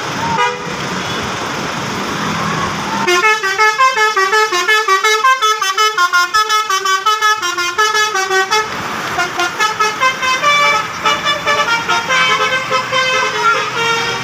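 Bus telolet horn of the 'basuri' type, playing a quick tune of stepping notes. It starts about three seconds in after some background noise, breaks off briefly after about five seconds, then plays a second run of notes.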